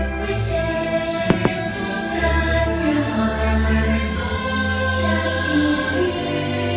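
Fireworks show soundtrack: orchestral music with a choir singing. Two sharp firework bangs sound close together about a second and a half in.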